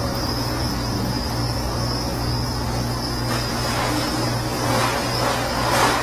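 Steady low hum under a continuous high-pitched whine, with two soft swells of noise near the end.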